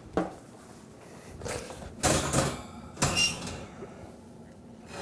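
Kitchenware being handled: a light knock, then two squeaky scrapes, about two and three seconds in, of something sliding across a pan or plate.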